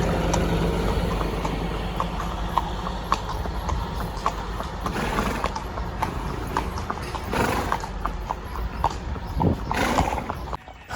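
Horses' hooves clip-clopping in an uneven rhythm of roughly two strikes a second, with a few louder rushes of noise in between.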